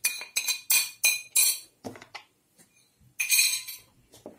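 Utensil tapping and scraping spices off a ceramic side plate into a bowl: a quick run of about six sharp clinks in the first second and a half, then a short scrape about three seconds in.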